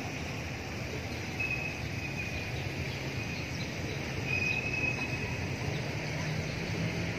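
Steady outdoor background noise with a low rumble underneath, and a few short, high, thin calls from a small animal, the longest lasting about a second.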